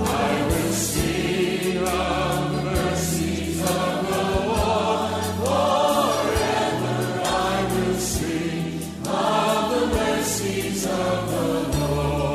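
Worship choir singing a gospel-style praise song with a band, a moving bass line under it and drum and cymbal strokes.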